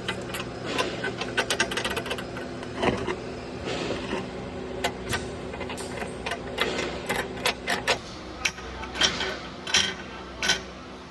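Irregular metallic clicking and clinking, in quick clusters and then more spread out after about eight seconds, over a steady low hum.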